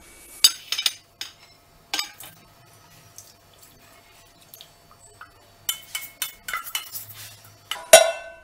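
Metal pan and utensils clinking and knocking: a few sharp clinks early on, then a quick run of them, with the loudest strike near the end ringing briefly.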